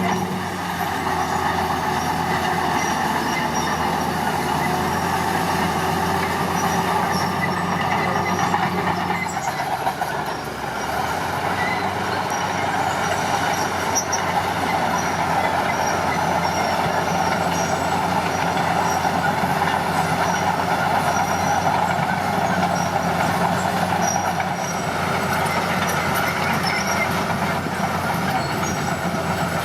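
Diesel engine of heavy earthmoving machinery running steadily under work, with a brief drop in level about ten seconds in.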